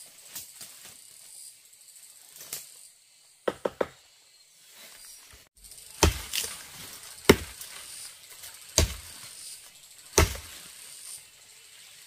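Four heavy chopping blows, about a second and a half apart, preceded by three quick lighter knocks, over a steady high chirring of forest insects.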